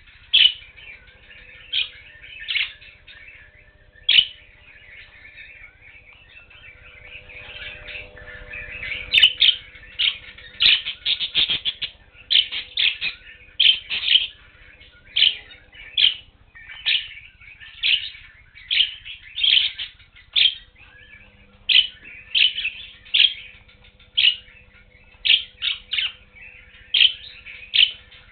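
Budgerigars chirping: a long run of short, repeated chirps about one or two a second, thickening into busier chatter for a few seconds about a third of the way in.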